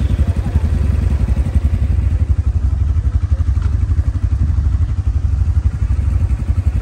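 ATV engine running: a steady, fast, low pulsing.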